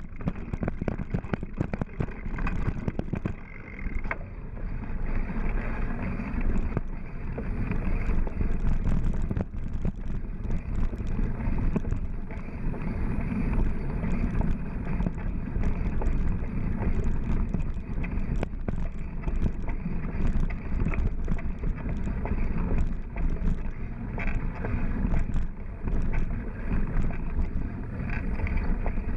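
Mountain bike rolling over a dirt forest trail: steady wind rumble on the microphone, with frequent clicks and rattles as the bike goes over bumps.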